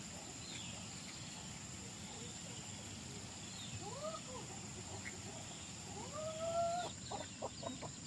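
Rooster crowing: a short call about four seconds in, then a longer crow about six seconds in that rises and holds, the loudest sound here. Near the end chickens start clucking, over a steady outdoor background with a thin high drone and a few small bird chirps.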